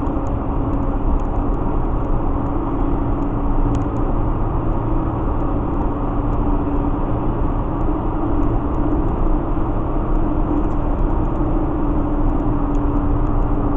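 Steady road and engine noise heard from inside a vehicle cruising at highway speed: a low rumble with a constant drone.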